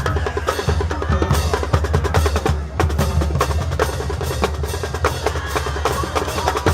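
High school marching band drumline playing a drum-heavy passage, rapid snare drum strokes and rolls over bass drum hits, with the band's pitched instruments faint underneath.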